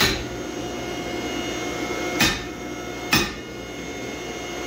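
Three hand-hammer blows on red-hot axe steel, the second about two seconds after the first and the third about a second later, over a steady drone of shop machinery.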